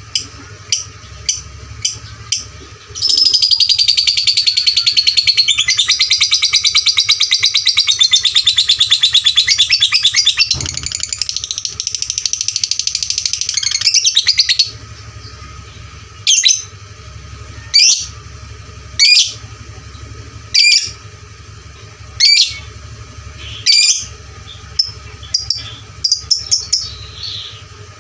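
Fighter lovebird singing loudly: a few short chirps, then a long unbroken rapid trill (ngekek) lasting about eleven seconds, then a run of separate sharp chirps about one and a half seconds apart.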